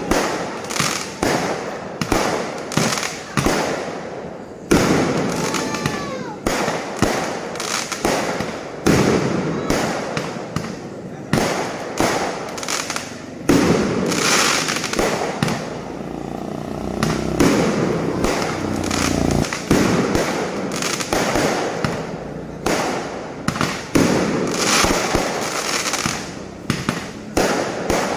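Fireworks going off in quick succession: sharp bangs with crackle, coming about once or twice a second all through. A short whistling tone rises and falls about five seconds in.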